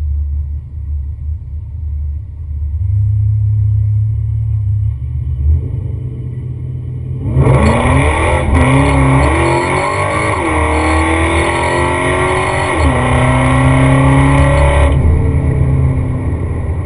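Whipple-supercharged Ford F-150 Lightning V8 with full exhaust, running on E85, rumbling at low revs, then launched hard about seven seconds in on a 1/8-mile pass. The revs climb, fall back at two gear shifts, and climb again, then cut off suddenly after about seven and a half seconds as the throttle is lifted.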